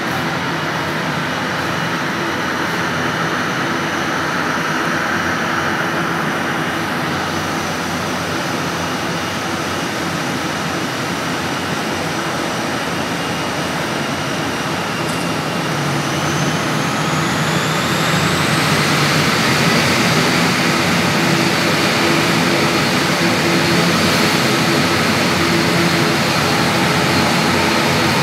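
Twin turboprop engines of an ATR 72-600 airliner running on the ground: a steady propeller drone with a turbine whine. From about halfway through, the whine rises in pitch and the engines grow louder as they spool up.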